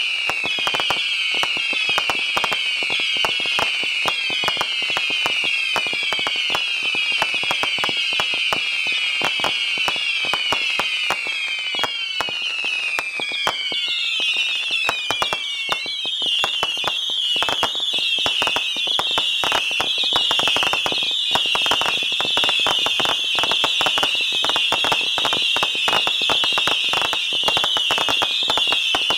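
A 750-shot Saturn missile battery firing rapidly and without pause: many overlapping shrill whistles, each falling in pitch, over dense pops and cracks. About halfway through, the whistling turns higher and steadier.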